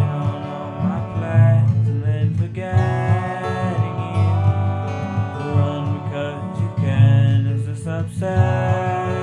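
Music: a guitar-led song in a passage without lyrics.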